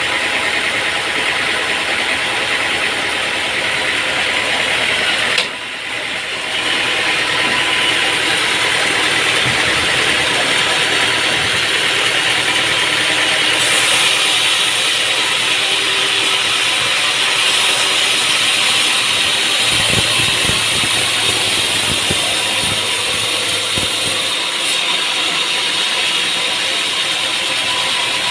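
Sawmill machinery running steadily, a continuous high-pitched mechanical whirr that dips briefly about six seconds in.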